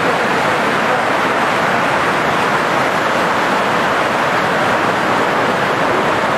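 Flash-flood water rushing in a fast, churning torrent down a street: a loud, steady rush of turbulent water.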